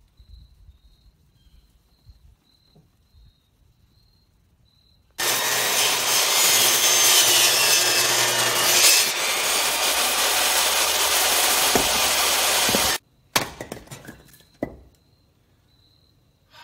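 Portable table saw cutting through a short log: it starts abruptly about five seconds in, runs through the cut for about eight seconds and cuts off suddenly. A few sharp knocks follow, a hatchet splitting the wood.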